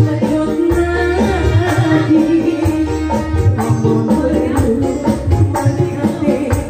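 Live band music played loud through the stage loudspeakers: a steady beat with hand drums and tambourine under a melody, with a woman singing into a microphone.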